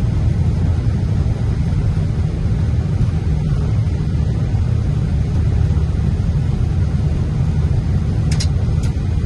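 Steady low rumble inside an Airbus airliner's cockpit as it rolls along the ground after landing. Two short high ticks come about half a second apart near the end.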